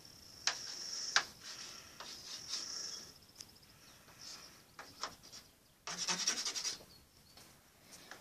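Chalk scratching and tapping on a chalkboard as words are written, with sharp ticks at the strokes and a short burst of fast scraping about six seconds in.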